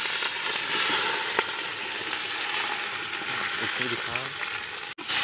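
Sliced red onions sizzling and frying in a hot aluminium pot over a wood fire as they are tipped in, a steady hiss that swells as they land.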